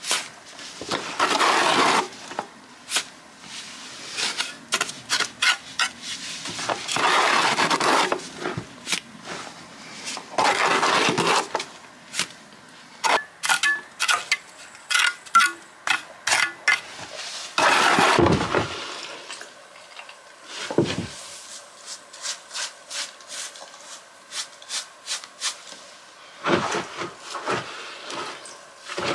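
Hand work filling the gaps between wall stones with mortar from a plastic bucket: material is scraped and rubbed against the stone in several passes about a second long, among many sharp clicks and knocks of tool, stone and bucket.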